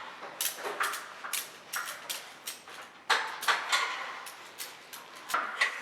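An irregular run of sharp clicks and knocks, like hard parts and tools being handled, with a short ring after each.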